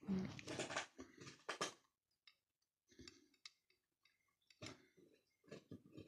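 Spoon being handled: scattered quiet clicks and scrapes, busiest in the first second or so, then sparse.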